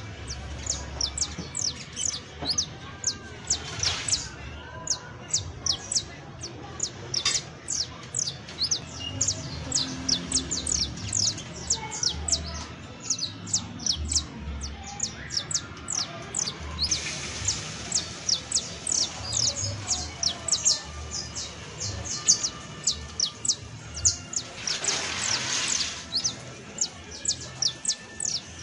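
Saffron finch singing: a fast, continuous string of short, high, downward-slurred chirps. Past the middle and again near the end, it breaks into a denser, buzzier trill lasting about a second and a half.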